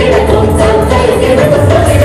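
Dance music: a song with singing over a steady percussion beat.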